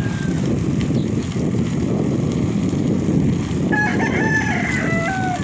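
Steady wind rushing over the microphone of a moving bicycle, with a rooster crowing once near the end: a call of several held notes that drops in pitch at the close.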